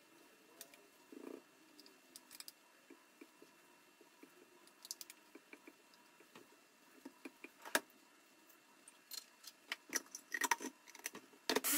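Faint, scattered clicks and taps of kitchen items being handled, the sharpest about two-thirds of the way in, then a short burst of steady noise near the end.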